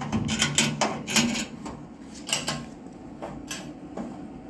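Metal clanking and rattling as a modified C-clamp is handled and set in place: a quick cluster of knocks and clicks in the first second and a half, then a few scattered ones.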